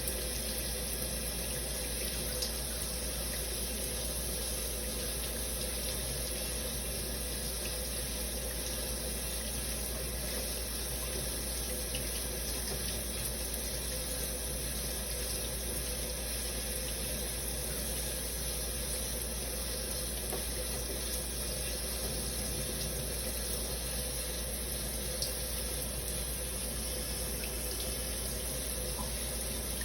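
Shower running steadily, a continuous spray of water falling.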